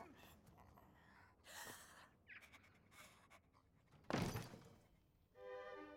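Faint scuffling, then a single heavy thump about four seconds in. Near the end, orchestral music comes in with held string notes.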